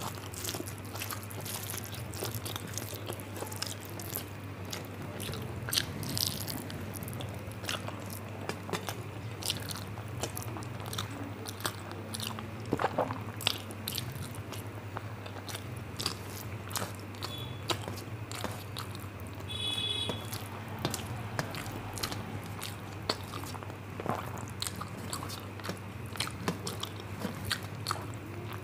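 A person eating rice and curry close to the microphone: wet chewing and mouth clicks, irregular throughout, over a steady low hum.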